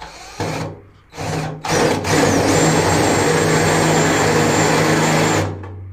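Cordless drill with a step bit drilling into the thin sheet steel of a 1954 VW Beetle door bottom. It starts with two short trigger pulls, then runs steadily for about three and a half seconds with a thin high whine, and stops shortly before the end.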